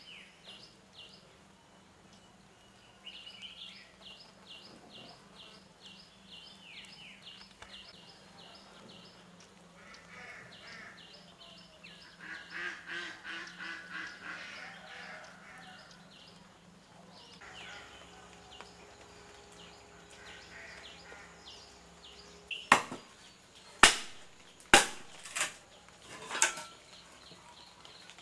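A rapid, repeated high chirping, with some bird calls among it, then about five sharp knocks a few seconds from the end.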